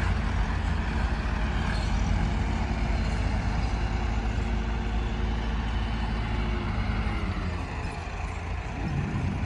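Diesel tractor engines running close by in a steady low rumble. About three-quarters of the way through the rumble eases, and near the end one engine's note rises and falls.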